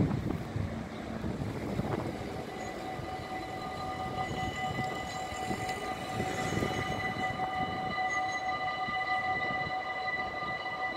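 Train rolling past with a rumble, hauled by an electric locomotive; about three seconds in a steady high whine of several tones sets in and holds.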